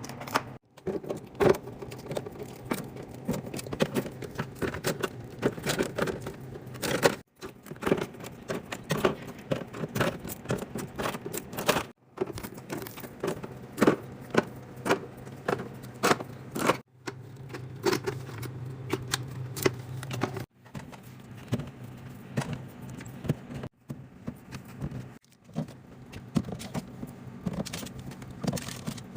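Drink bottles and cans being handled and set down while restocking, a steady run of clinks and clacks over a low steady hum. The sound breaks off abruptly several times.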